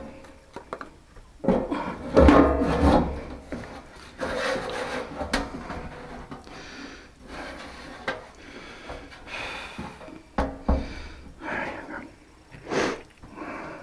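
Irregular work noise of parts being handled: scraping and rubbing with scattered knocks, loudest about two seconds in and again near the end.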